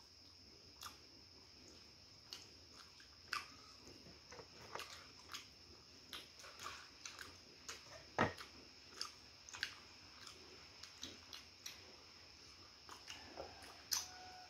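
Close-miked eating of fried chicken: scattered short smacks and clicks of chewing and biting, the loudest about eight seconds in, over a faint steady high-pitched whine.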